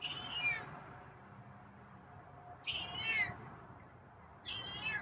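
Feral cat meowing three times, each meow about half a second long and falling in pitch.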